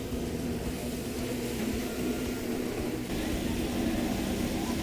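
Steady machine hum with a low rumble underneath.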